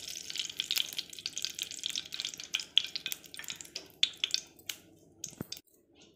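Cooking oil poured into a hot, dry aluminium kadai, sizzling and crackling with many sharp pops; the crackle dies away about five seconds in. A single light knock comes near the end.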